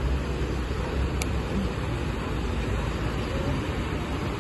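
Steady low rumble and rushing noise of wind and water as a river tour boat motors past below, churning up a wake.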